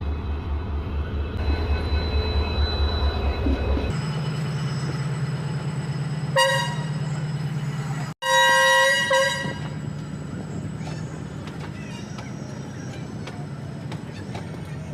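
Rail track maintenance machine's engine running with a steady low hum, and its horn sounding over it: a short toot about six seconds in, then a louder blast of about a second just after eight seconds.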